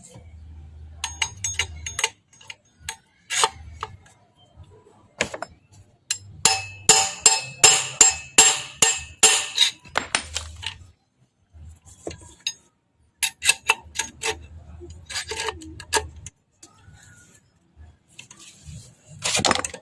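Hammer blows on metal, driving an old front wheel bearing out of a motorcycle wheel hub. There are scattered strikes, then a fast run of several blows a second near the middle that ring metallically, and a few more strikes later, the last near the end being the loudest.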